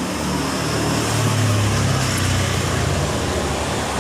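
A motor vehicle's engine running close by: a steady low rumble under a broad noise, growing louder over the first second.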